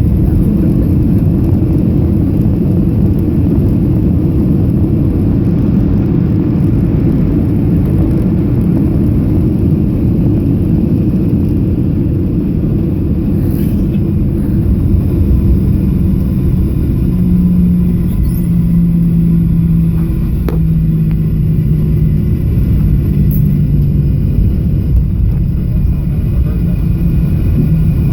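Cabin noise inside a Boeing 737 airliner on landing: a loud, steady low rumble of engines and rushing air. In the second half a low engine hum comes and goes in short stretches.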